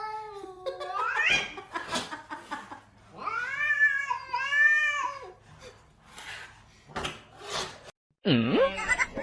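Cat yowling in long drawn-out meows, one rising near the start and two long arching calls a few seconds in.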